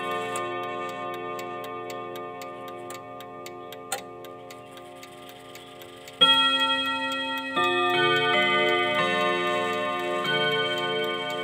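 ODO chiming clock: its hammers strike the chime rods, and the notes ring on and slowly fade over the steady tick of the movement. About six seconds in a loud new strike starts another run of notes.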